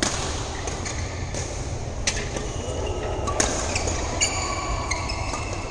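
Badminton play on an indoor court: sharp racket-on-shuttlecock hits a second or so apart, some followed by brief shoe squeaks on the court floor, over a steady low hall rumble.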